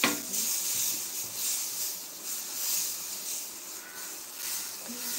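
Dosa batter sizzling on a hot tawa: a high hiss that swells and eases every second or so.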